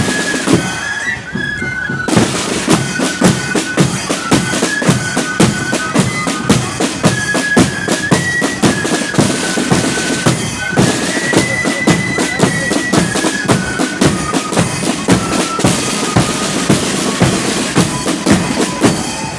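Loyalist marching flute band playing a tune: flutes in unison carry the melody over rattling side drums and a steady bass drum beat. The melody breaks off briefly about halfway through.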